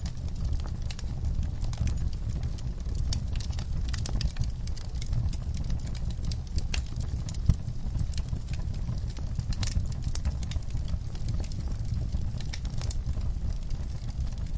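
Fire crackling, with frequent sharp pops and snaps over a steady low rumble; one pop about halfway through is louder than the rest.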